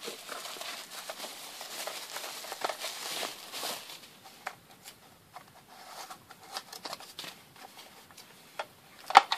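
Plastic bubble-wrap packaging crinkling as it is unwrapped for about four seconds, then scattered taps and clicks of a plastic tool case being handled, with one sharp, loud click near the end.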